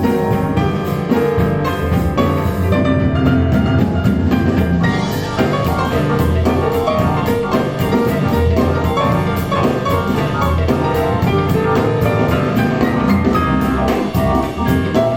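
Jazz-style instrumental music with piano and drums, played through a pair of KEF LS50 bookshelf speakers in a furnished room, with a steady beat.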